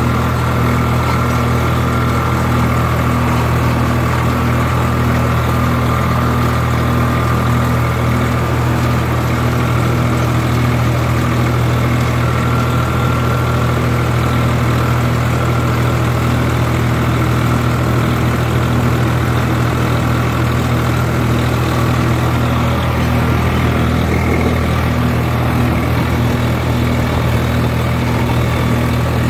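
Swaraj tractor's diesel engine running steadily at constant speed, very loud.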